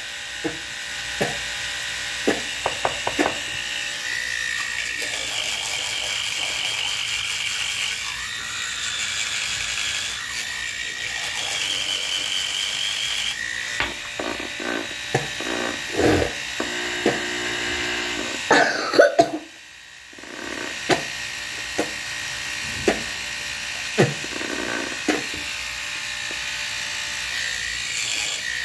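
Electric toothbrush buzzing while brushing teeth, its pitch shifting now and then, with scattered short knocks. The buzz stops for about a second roughly two-thirds through, then starts again.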